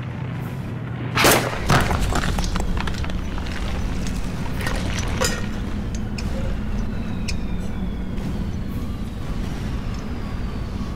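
Battle sound effects: two heavy blasts about a second in, then scattered cracks and impacts over a steady low rumble, with music underneath.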